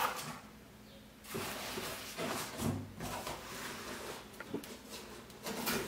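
A cardboard shipping box being handled and tilted while a shrink-wrapped box set is slid out of it: irregular scraping and rustling of cardboard with a few light knocks, starting about a second in.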